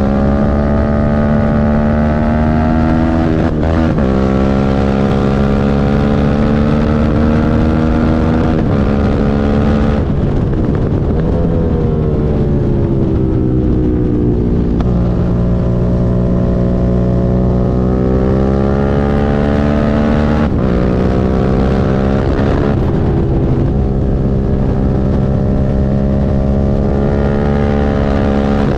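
Suzuki SV650 V-twin engine running under way, its note holding fairly steady with several sudden steps in pitch, and a fall and rise in revs between about ten and fifteen seconds in. The bike has a misfire.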